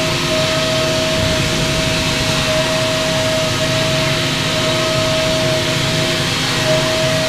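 CNC mill cutting aluminum on an iMachining toolpath: a steady high tone from the spindle and cutter, breaking briefly about once a second as the tool moves through its passes, over a constant hiss of flood coolant and air blast.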